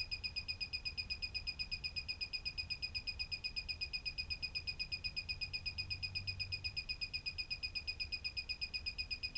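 Ninebot One E+ electric unicycle beeping rapidly and evenly, about eight high beeps a second, as its power button is held down through the reset sequence that keeps restarting the unit with its red LEDs blinking.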